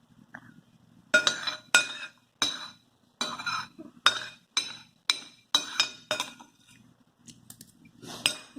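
Metal cutlery clinking and scraping against a plate as food is eaten, about two ringing clinks a second, stopping about six seconds in, with one more clink near the end.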